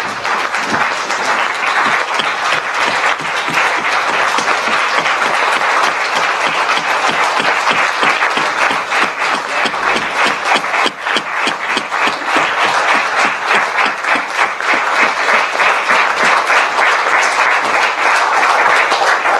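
Audience applauding: dense, sustained clapping with a brief dip about eleven seconds in.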